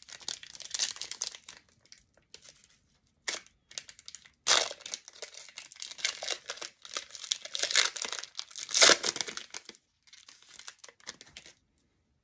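Foil wrapper of a basketball trading-card pack being torn open and crinkled by hand, in crackling bursts with short pauses. The loudest tear comes about nine seconds in, and the crackling stops about a second before the end.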